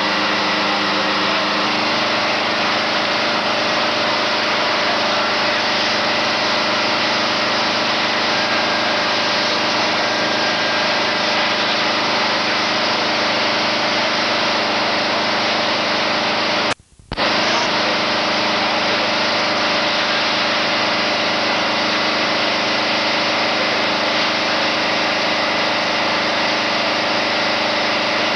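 A fire engine's motor running steadily at the pump, with a constant engine hum. The sound cuts out for about half a second just past the middle, then carries on the same.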